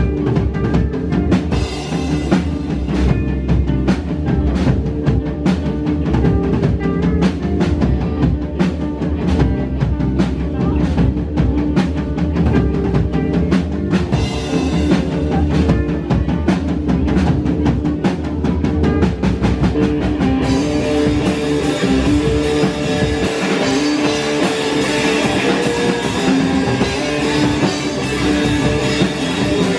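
Live rock band playing: a drum kit driving a steady beat under electric guitars. About twenty seconds in the sound thickens and brightens as the band comes in fuller.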